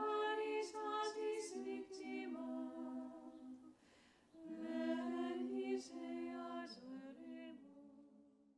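Unaccompanied women's voices singing together in harmony: two sung phrases with a short breath about four seconds in, fading out at the end.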